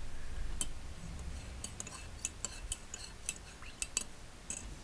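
Close-miked ASMR clicks: a dozen or so sharp little ticks at irregular intervals, over a low rumble in the first second.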